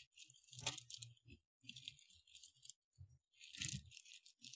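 Faint crinkling of the plastic bag wrapped around a new brake rotor as it is handled and pulled off, in short irregular spells, the main ones in the first second and again after about three and a half seconds.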